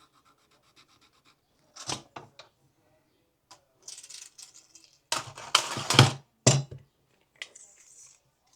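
Handling of a steel tape measure as its blade is pulled out and set against a 12-inch mark: scattered clicks, scrapes and knocks with quiet gaps, the loudest cluster about five to six and a half seconds in.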